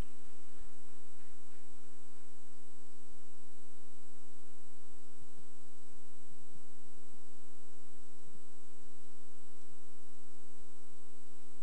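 Steady electrical mains hum through the sound system: a constant buzzing drone with many evenly spaced overtones, with a few faint low ticks.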